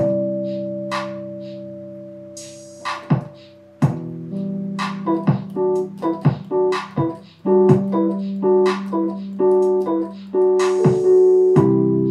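Digital piano playing: held chords that ring and fade, changing about four seconds in, then a quick figure of short repeated notes over a held bass from about five seconds, settling on a held chord near the end. Sharp percussion hits, some with a cymbal-like hiss, keep time under the keys.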